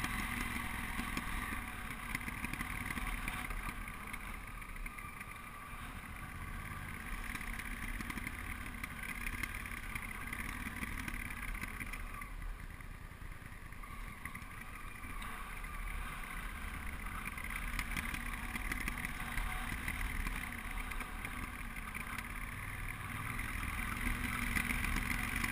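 Honda Africa Twin's parallel-twin engine running steadily under way on a dirt trail, heard from the rider's helmet. It drops back a little twice and picks up again near the end.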